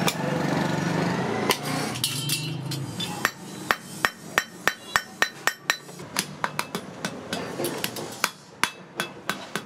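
Wooden mallet beating sheet metal flat on a steel anvil: a quick run of sharp knocks, about three a second, starting about three seconds in.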